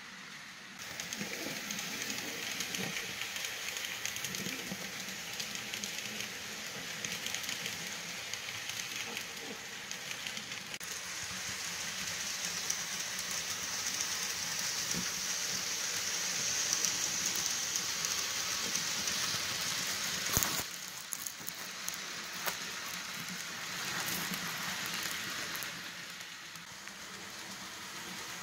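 Model of the 4449 Daylight steam locomotive and its passenger cars running on layout track: a steady rolling whir and hiss, starting about a second in and growing louder past the middle before easing near the end, with one sharp click about twenty seconds in.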